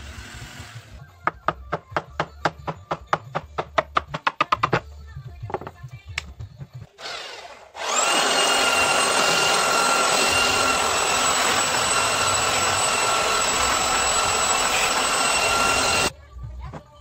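Electric belt sander switched on and running steadily with a high whine as it sands the wooden table top, then cut off suddenly after about eight seconds. Before it, a quick run of about twenty sharp knocks.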